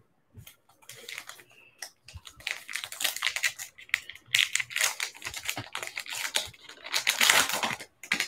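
Topps Allen & Ginter baseball card pack wrapper being torn open and crinkled by hand: a dense, crackling run of rustles, after a few scattered light clicks of cards being handled.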